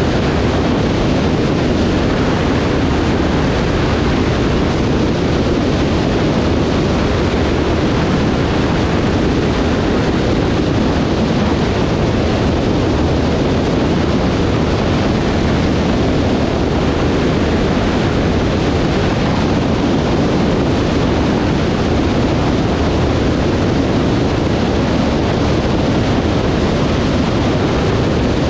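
Cessna 152 light aircraft heard from a wing-mounted camera: a steady, loud rush of airflow over the microphone mixed with the plane's engine noise, unbroken throughout.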